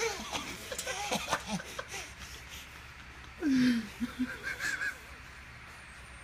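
People laughing and snickering in short bursts, with a loud falling grunt or laugh about three and a half seconds in.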